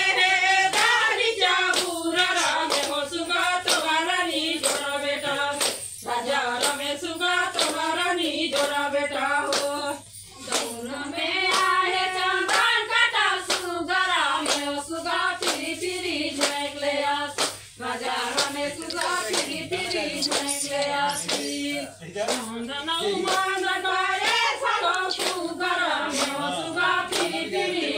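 A group of women singing a Chhattisgarhi Suwa (Suga) folk song together, keeping time with steady rhythmic hand claps and no instruments.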